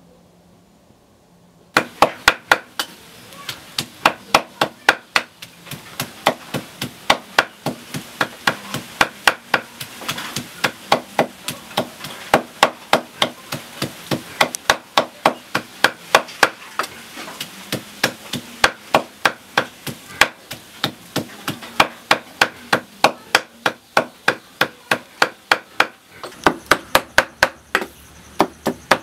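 Cleaver chopping raw pork on a thick wooden chopping block, mincing it: a fast, steady run of sharp knocks, a few strokes a second, starting about two seconds in.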